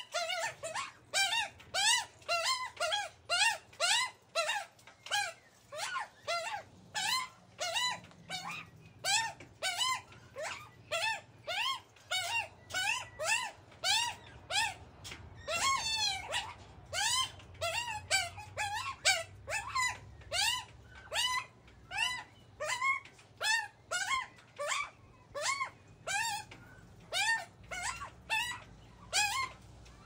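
Juvenile Australian magpies begging for food: harsh squawking calls repeated over and over, about two a second, each call rising and then falling in pitch.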